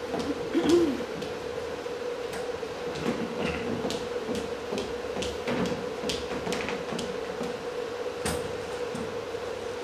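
Footsteps of hard-soled shoes walking across a hard stage floor, making irregular sharp clicks over a steady hum. A brief murmur under a second in is the loudest moment.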